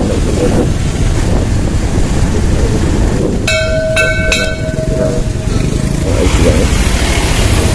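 Motorbike riding along a street, a steady rumble of engine and wind on the microphone. About three and a half seconds in, a bell is struck three times in quick succession and rings on for about two seconds.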